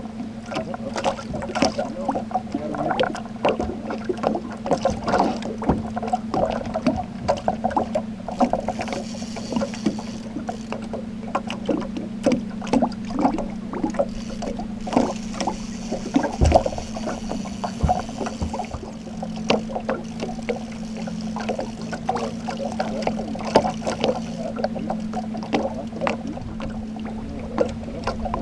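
Boat motor running steadily at trolling speed, a constant low hum, with frequent small knocks and splashes as water slaps the aluminium hull.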